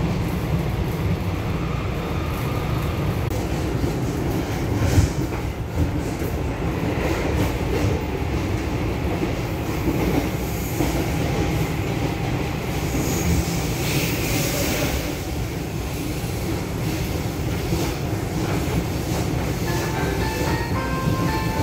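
Inside a Taiwan Railway EMU500 electric commuter train running along the line: a steady rumble from the wheels and running gear, with a few sharp knocks from the wheels and a brief hiss about two thirds of the way through.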